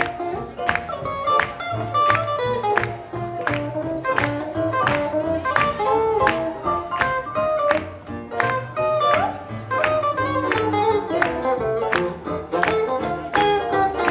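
Live swing jazz band playing an up-tempo tune: a quick, even beat of about three strokes a second under horn and guitar lines and a steady bass.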